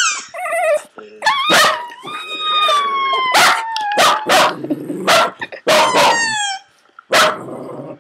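West Highland White Terrier barking and howling in an excited frenzy: sharp barks mixed with long, drawn-out howls that slide slowly down in pitch. There is a short lull near the end, then one more bark.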